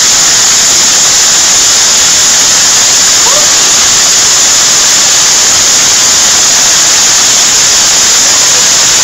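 Heavy hail falling without a break and piling up on the ground and on a house, a loud, steady hiss.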